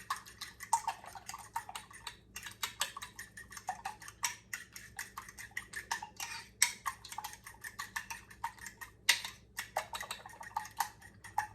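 A fork beating raw eggs in a bowl: a quick, rhythmic run of light clicks as the tines tap against the bowl, with a few louder knocks.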